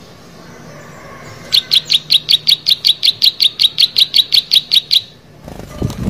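Plain prinia singing a fast, even run of about twenty identical high chirps, some six a second, for about three and a half seconds. A short low thud follows near the end.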